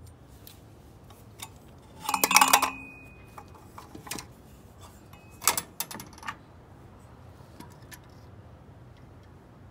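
Metal-on-metal clinks and knocks of a CAV diesel injection pump being worked by hand onto its mounting on the engine while its drive is lined up. A loud run of clinking with a brief ringing note comes about two seconds in, and a second, shorter run of knocks about five and a half seconds in, with a few faint clicks between.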